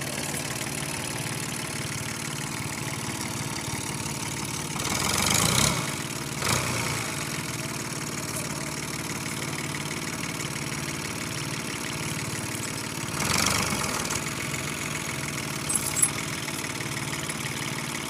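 Fiat 480 tractor's three-cylinder diesel engine running steadily at low revs, with two brief louder swells about five and thirteen seconds in and two short sharp cracks near the end.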